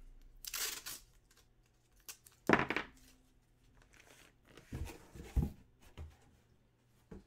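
Plastic and paper packaging rustling and crinkling in a few short, uneven bursts, the loudest about two and a half seconds in, followed by a couple of dull knocks as things are handled on the table.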